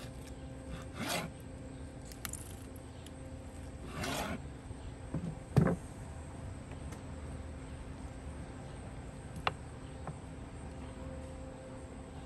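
Long kitchen knife cutting smoked pork spare ribs on a wooden end-grain cutting board, with a couple of short slicing scrapes. About five and a half seconds in, a sharp knock as the knife is set down, and a lighter click later, over a faint steady hum.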